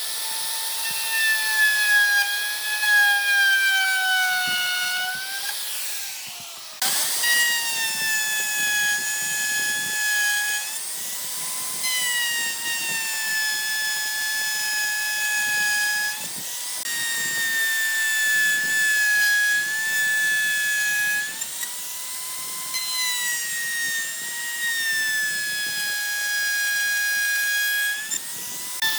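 Electric power tool's motor whining at high speed while working wood, its pitch sagging under load and recovering again and again. It cuts out briefly about six seconds in and spins back up.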